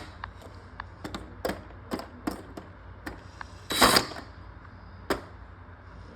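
Terminal screws on a fire alarm pull station being unscrewed: small irregular clicks and scrapes, with a louder clatter about four seconds in.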